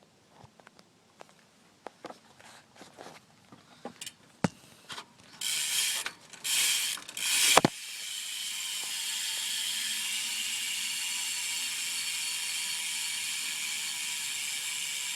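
BMX rear wheel's Primo Mix cassette hub freewheeling, its pawls ratcheting. First come a few scattered clicks, then short loud ratcheting bursts, then from about eight seconds a long steady buzz as the wheel spins freely, slowly dropping in pitch as it coasts down.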